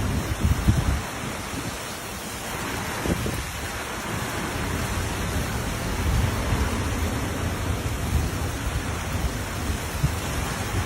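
Steady heavy rain with low thunder rumbling underneath, swelling about a second in and again midway.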